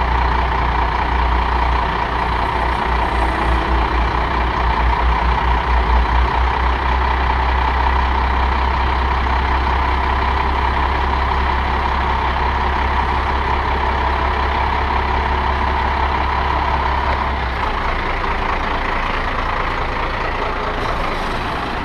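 International 4800 dump truck's diesel engine running steadily while its dump body is lowered from the raised position. A deep pulsing and a steady higher hum both drop away about 17 seconds in.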